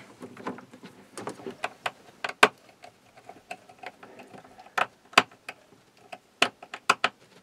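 Small irregular clicks and taps as wires are worked into the screw terminals of a plastic-cased PWM solar charge controller, with a handful of sharper clicks.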